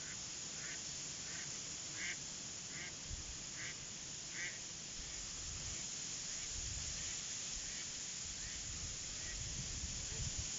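A duck quacking in a run of short calls, about one every three-quarters of a second, louder in the first half and then fading away, over a steady hiss.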